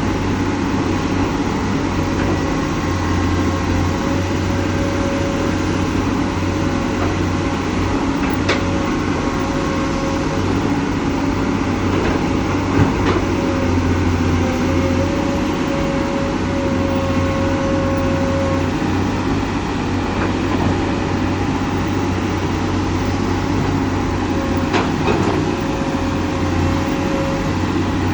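Komatsu PC200 hydraulic excavator running steadily while working, its diesel engine and hydraulics giving an even mechanical drone with a low hum. A few sharp knocks stand out, one near a third of the way in and one near the end.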